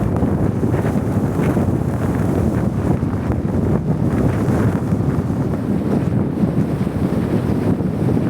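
Strong storm wind buffeting the microphone in a steady low rumble.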